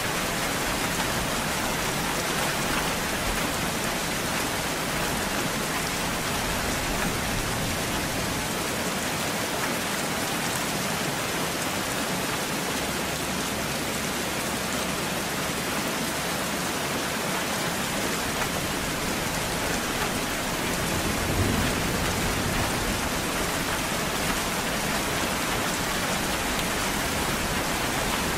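Steady rainfall, an even hiss of many drops, with a brief low rumble of thunder about three quarters of the way through.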